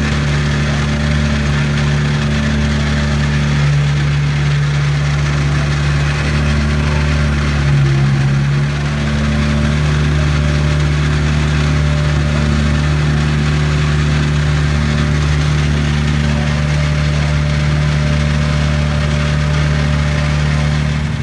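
Car engine idling at a steady, constant note, with a brief small change in the note about eight seconds in.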